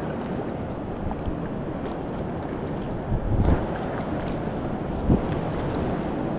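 Solo canoe paddled on calm water: paddle strokes with a few short splashes and knocks, about three seconds in and again near five seconds, over a steady rushing noise.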